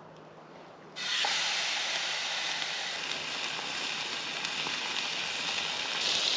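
Hamburger patties sizzling as they cook over a campfire: a steady frying hiss that starts suddenly about a second in and grows a little louder near the end.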